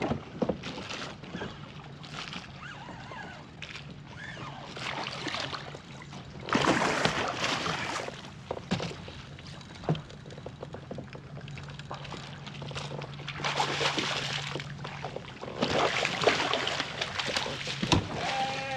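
A hooked speckled trout thrashing at the surface beside the kayak as it is worked into the landing net, with water sloshing and splashing. The splashing comes in several bursts, the longest about six seconds in and the last near the end.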